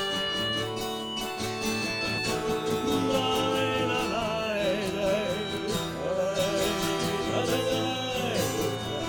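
Live band playing an instrumental passage of a song: strummed acoustic guitar chords under a wavering melody line.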